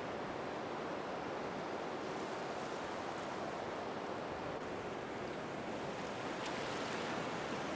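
Steady, even rushing noise with no tones or rhythm, like surf or hiss.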